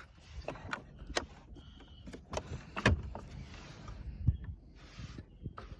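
Irregular clicks and small knocks of the plastic trim around a Maserati Ghibli's gear shift lever being pried and worked loose by hand and a small tool, with a brief scraping in the middle.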